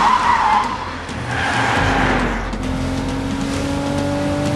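Car chase sound effects: two short bursts of tyre screech in the first two seconds, then a car engine running and revving, its pitch slowly climbing as it speeds up.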